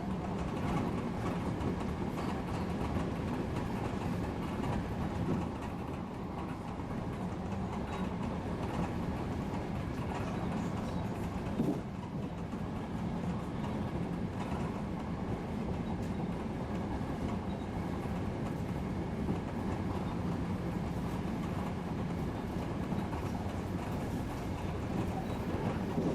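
Odakyu Line electric express train running along the track: steady rolling noise of wheels on rail, with a sharp click from a rail joint about halfway through.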